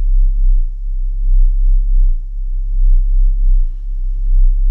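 Sound-art drone: a deep, pure electronic tone that swells and fades in slow pulses, with a faint steady higher tone above it.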